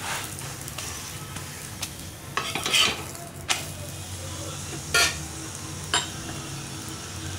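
Cucumber chapati sizzling in oil on a hot tawa, with a steady frying hiss. A metal spatula presses and scrapes on it about four times in the second half.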